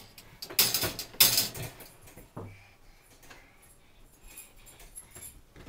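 Wire dog-crate door rattling and clanking as a small child's hand shakes it. Two loud metal rattles come about a second in, followed by a short knock and fainter clicks.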